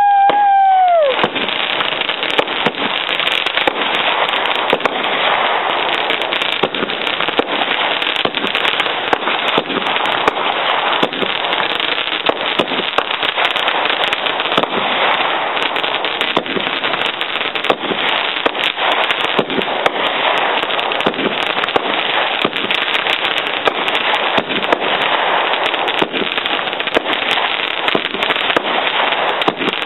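Consumer fireworks going off at close range: a dense, continuous crackle of many small rapid pops. In the first second a short high tone holds, then bends down and stops.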